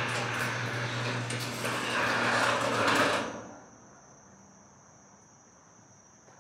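Electric garage door opener running as the garage door rolls up, a steady motor hum with rattling, stopping abruptly about three seconds in when the door reaches fully open. Afterwards only a faint, steady, high insect trill remains, typical of crickets.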